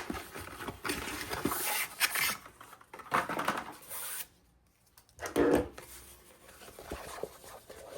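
Packaging of a trading-card collection box being handled and pulled open: irregular rustling, scraping and light knocks, broken by a moment of complete silence about halfway through.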